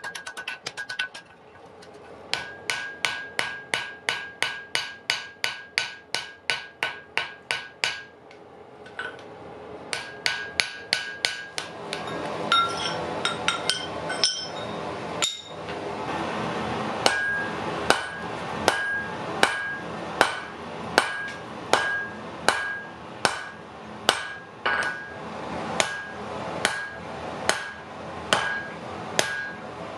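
Blacksmith's hand hammer striking hot iron on a steel anvil, forging an axe: a long run of blows, about three a second at first and about two a second later, each with a bright ring from the anvil, broken by short pauses near the start and about eight seconds in. A steady rushing noise rises under the blows in the second half.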